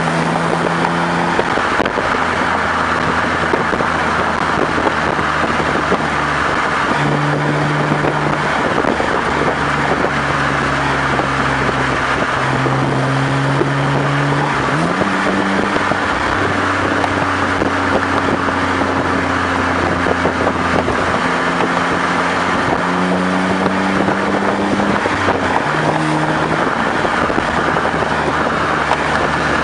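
BMW exhaust heard right at the tailpipes while driving, with road and wind rush. The engine note holds steady and shifts in pitch a few times, rising briefly about halfway through.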